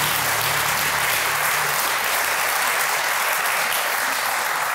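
Studio audience applauding, a steady dense clapping from many hands.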